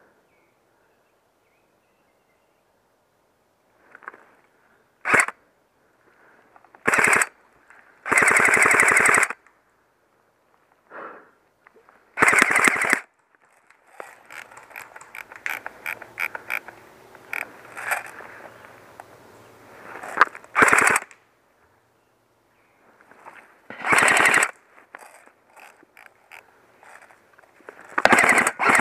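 Airsoft rifles firing bursts of automatic fire: rapid, evenly spaced shots in short volleys of well under a second to about a second and a half, with scattered single shots between the bursts.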